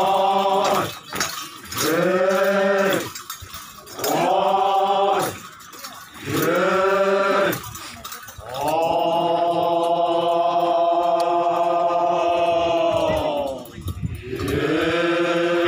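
Yimchunger Naga dancers chanting together in unison. Four short calls rise and fall about two seconds apart, then one long held call of about five seconds, and another begins near the end. The metal ornaments on their waists clink as they dance.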